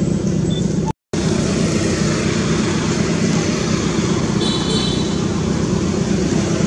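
Steady low drone of a running engine, with a brief dropout about a second in.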